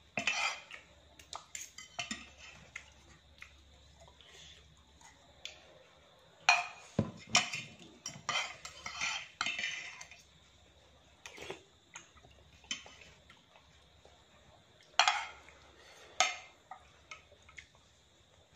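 A metal spoon and fork scraping and clinking against a ceramic plate as the last noodles are gathered up. The clinks and scrapes come in irregular clusters with quieter pauses between.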